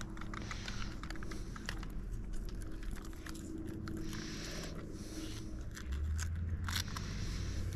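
Soft scraping, rustling and crunching of a 3S LiPo battery pack and its wires being forced and tucked into a tight RC buggy chassis by hand.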